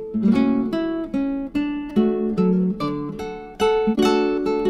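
Background music: acoustic guitar strummed and plucked, a new chord struck about twice a second and ringing out between strokes.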